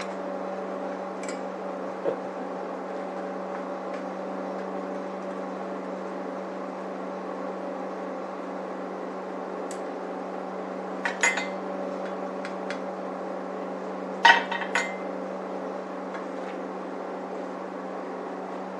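A steady mechanical hum throughout, with short sharp metallic clinks of metal parts or tools being handled twice, a little past halfway and about three-quarters through.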